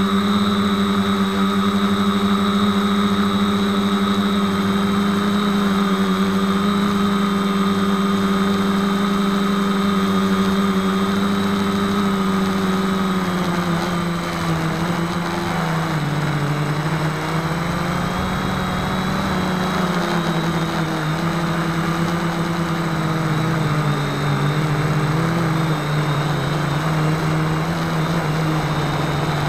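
Motors and propellers of a 450-size quadcopter, recorded from its own onboard camera: a steady droning hum whose pitch dips and wavers a few times in the second half as the throttle changes.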